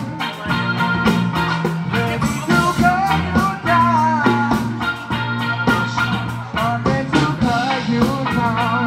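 A rock band playing live: electric guitar, bass guitar and drum kit, with a singer's voice carrying the melody over the steady drum beat.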